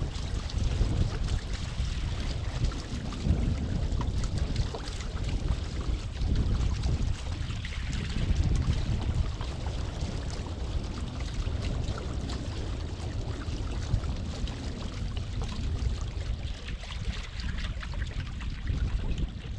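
Water rushing and splashing along a sailboat's hull under sail, with heavy gusting wind buffeting the microphone.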